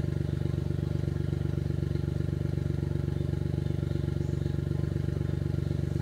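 Suzuki Jimny JA11's small three-cylinder engine idling steadily with an even, rapid pulse.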